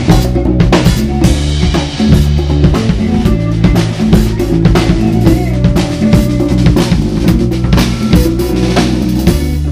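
Live band playing amplified music: a drum kit with kick, snare and cymbals, with electric bass and electric guitar over it.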